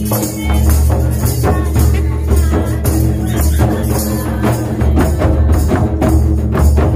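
Handheld tambourine jingling in a steady rhythm, over loud dance music with a heavy low bass.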